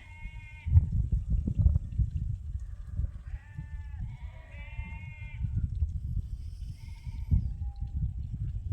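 Sheep bleating, several calls from the flock as the ewes head in, over a continual low rumble and thumping.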